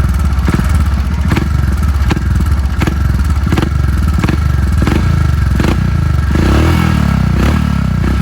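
Royal Enfield Himalayan 411's air-cooled single-cylinder engine running in neutral through an aftermarket Akrapovič slip-on exhaust (not a full system), revved in short, evenly spaced blips about every three-quarters of a second, with a longer rev about six and a half seconds in.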